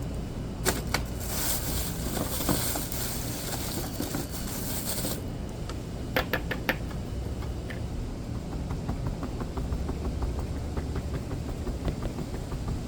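Sharp clicks and taps from small hard objects being handled, with a rustling hiss for a few seconds near the start and faint rapid ticking later, over a steady low rumble.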